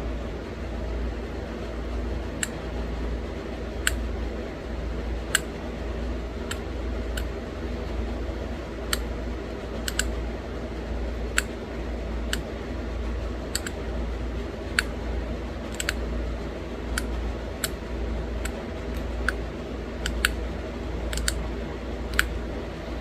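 Pressure flaking a small stone arrowhead: sharp clicks as tiny flakes snap off its edge, irregularly, about one a second, over a steady low hum.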